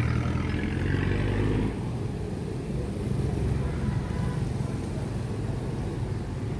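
Street traffic: a motor vehicle passes close by, its engine hum dropping away about two seconds in, leaving a steady low traffic rumble.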